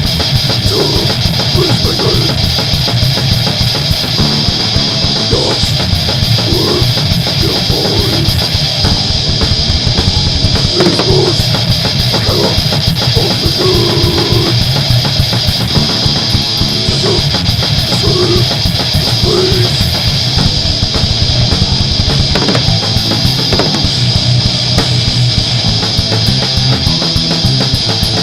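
Heavy metal band playing, from a demo recording: distorted electric guitars, bass and a fast-hit drum kit in a dense, loud, unbroken mix.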